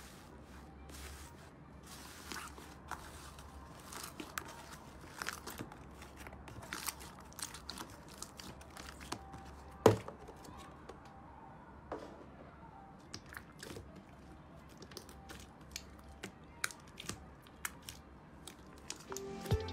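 Slime being pressed and kneaded by hand in a plastic tub, giving many small crackles and pops, with one louder knock about halfway through as the tub is handled. Music comes in at the very end.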